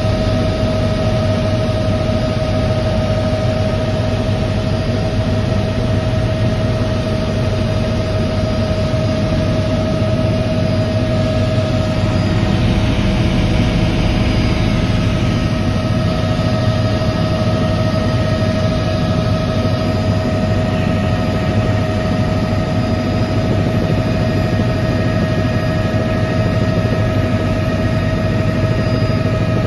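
Helicopter cabin noise in steady forward flight: a loud, constant drone of engine and rotors with a steady whine over it.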